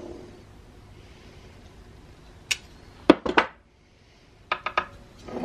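Small metal blowlamp pump parts clicking and clinking as they are handled and set down on a wooden workbench: a single click about two and a half seconds in, then two short clusters of clinks.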